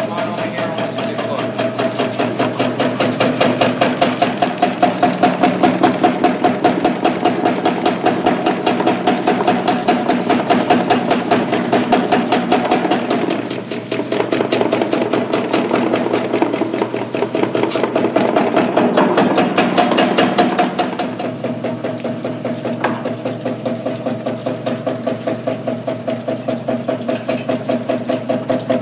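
Action Mining Micron Mill wave table running: a steady motor hum under a fast, even mechanical pulsing as the table drives waves across its water. The sound grows louder and busier from about two seconds in and eases back about two-thirds of the way through.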